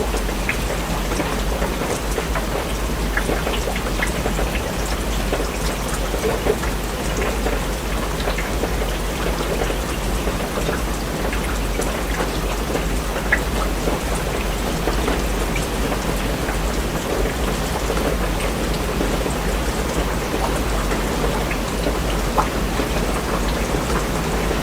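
Steady, even rain with many separate drops ticking sharply close by, over a constant low rumble underneath.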